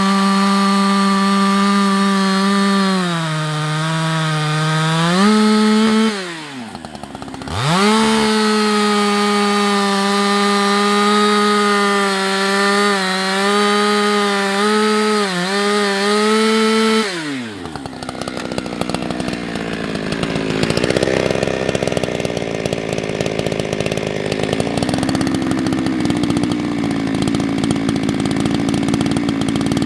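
Husqvarna 365 X-Torq two-stroke chainsaw running at high revs, cutting beech, its engine note sagging under load and briefly dropping before revving back up. About seventeen seconds in the high steady note falls away and the saw runs on with a rougher, less even sound.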